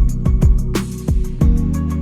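Background music with a beat: deep drum hits over a sustained bass line, with quick high ticks on top.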